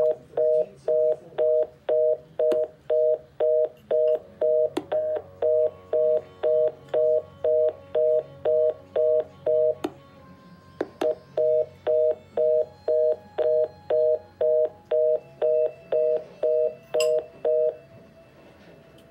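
Telephone fast busy (reorder) tone on a call line: a two-note tone beeping about twice a second. It breaks off for about a second midway, then resumes. The tone is the sign of a call that has been disconnected.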